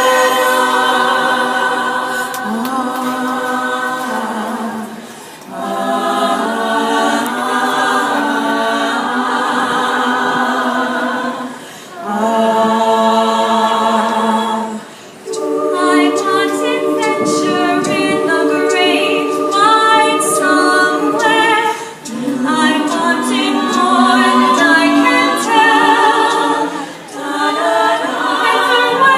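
All-female a cappella group singing in close harmony, holding chords in phrases of a few seconds each with short breaks between them.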